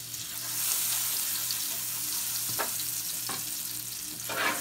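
Butter sizzling and bubbling as it melts into hot oil in a pan. The sizzle swells about half a second in. A couple of short scrapes of a utensil against the pan come partway through and near the end.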